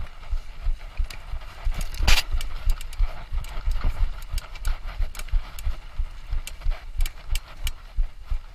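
Mountain bike jolting over rough trail: a quick run of low thumps with rattling clicks, and one loud knock about two seconds in.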